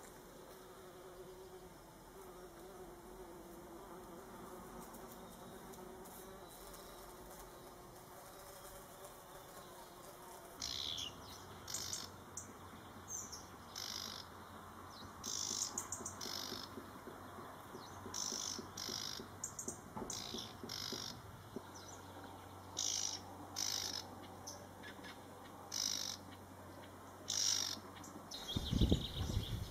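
A fly or bee buzzing faintly for the first ten seconds or so. From about ten seconds in, a small songbird sings short, high chirping phrases about once a second. Near the end comes a loud low rumble.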